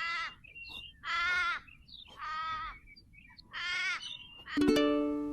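Repeated harsh animal calls, each short and pitched, about one a second, played as the kangaroo's sound. About four and a half seconds in, a bright chime rings and slowly fades.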